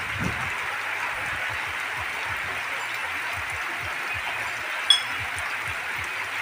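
Heavy rain pouring down steadily in an even hiss, with one sharp tap about five seconds in.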